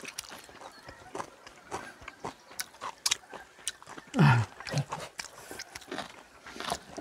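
Eating sounds at a table: chopsticks clicking against a small bowl and a plate, with chewing. About four seconds in there is one short low vocal sound falling in pitch.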